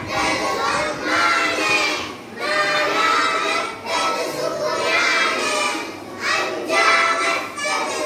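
A class of young children chanting Arabic letter names together in a sing-song recitation. The chant comes in short phrases with brief breaks between them.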